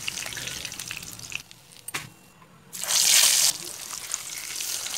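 Fish frying in hot oil in an iron kadai, a steady sizzle. About a second and a half in it drops almost to quiet, then a loud hiss lasts under a second, and the sizzle then goes on.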